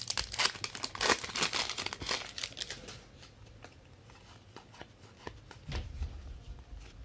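Trading cards and their plastic pack wrappers being handled: busy crinkling and crackling for the first three seconds, then only a few light clicks.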